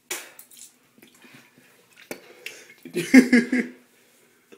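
A young man retching over a toilet bowl, sick from a dip of Grizzly wintergreen tobacco: a sharp breath at the start, then a loud throaty gagging heave about three seconds in lasting under a second.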